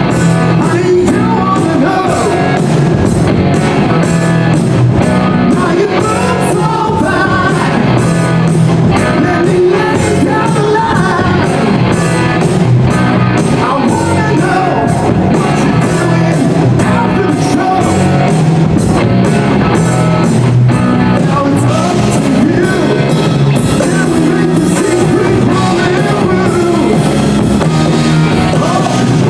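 Rock song with a male singer, guitars and a steady drum beat.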